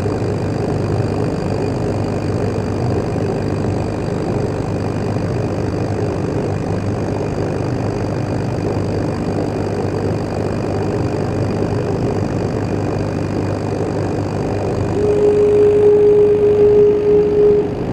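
Laser cutting machine running: a steady mechanical hum throughout. Near the end a single steady whine sits over it for about two and a half seconds, then cuts off.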